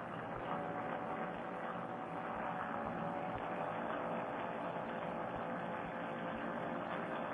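Paramotor trike's engine droning steadily in flight, a constant hum with no change in pitch, sounding muffled with no high end.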